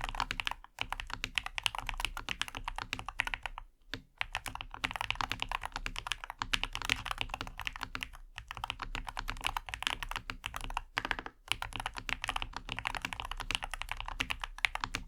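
Fast, continuous typing on a NuPhy Halo65 HE Hall effect keyboard: a rapid stream of key clacks, broken by a few short pauses.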